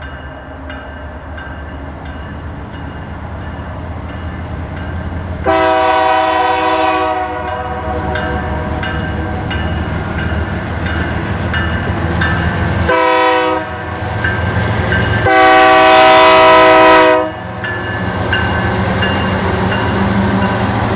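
Canadian Pacific freight train approaching, its diesel locomotives' rumble growing steadily louder, while the lead locomotive's multi-chime air horn sounds three times: long, short, long.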